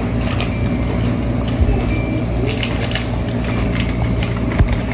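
Steady rain with scattered drops ticking close by, over a steady low rumble.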